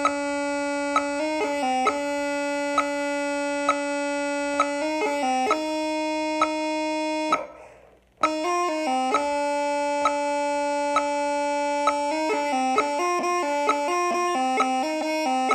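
Bagpipes playing long held notes in harmony, with a short accent about once a second. About halfway through the sound fades out briefly, then cuts back in abruptly, and after that the notes change more quickly.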